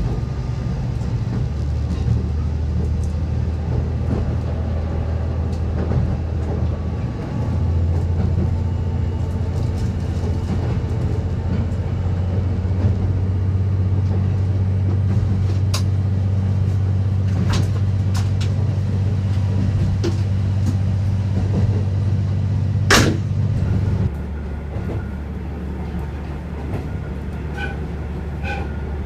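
A diesel railcar running along the line, heard from on board: a steady low engine drone that steps up in pitch about seven seconds in and drops back about five seconds before the end, over the running noise of wheels on rail. A few sharp clicks sound along the way, the loudest about three quarters of the way through.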